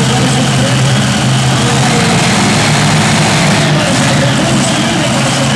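Several Hemi V8 engines of a multi-engine modified pulling tractor idling together with a steady low hum.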